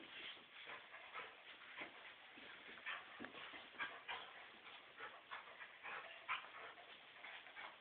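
A black Lab puppy and a Rhodesian Ridgeback playing tug with a toy: faint, short, scattered dog whimpers and yips, one or two a second.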